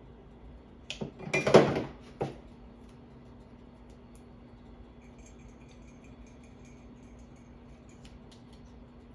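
Small hard parts clinking and rattling as a ceiling fan's wiring and wire nuts are handled by hand: a quick cluster of clinks between one and two seconds in, then only faint ticks of handling.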